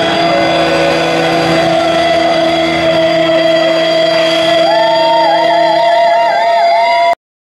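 Live rock band's distorted electric guitars holding long sustained notes with no singing, a high note wavering up and down in pitch coming in about five seconds in. The sound cuts off abruptly just before the end.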